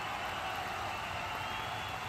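Steady outdoor background noise with a few faint, thin high tones coming and going.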